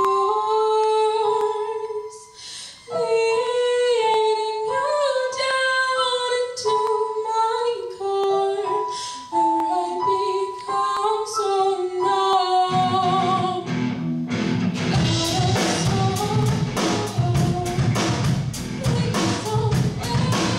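Live rock band with a female lead singer: she sings a slow melody over light accompaniment, then about 13 seconds in the bass guitar and full band come in, with the drum kit driving a steady beat from about 15 seconds. Electric guitars and a violin play in the band.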